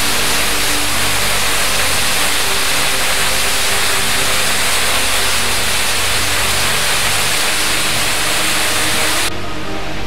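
Waterfall rushing down a tufa limestone cliff: a loud, steady hiss of falling water, with faint music underneath. Near the end the rush cuts off suddenly, leaving the music.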